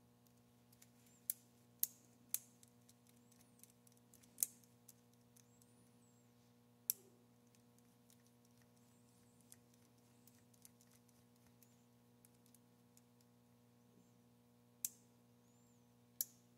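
Near silence over a faint steady electrical hum, broken by about seven sharp, irregularly spaced metal clicks as a rifle bolt is set and turned between the spindle and anvil of a bench-mounted digital micrometer.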